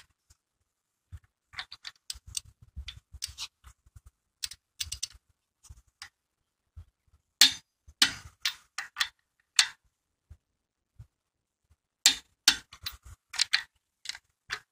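Click-type torque wrench working lug nuts on an alloy wheel: runs of sharp ratchet clicks in several clusters, with one louder click about halfway through.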